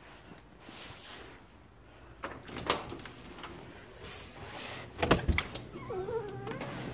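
Screen door being opened and let close: latch and handle clicks, then a couple of knocks as the door bangs shut about five seconds in.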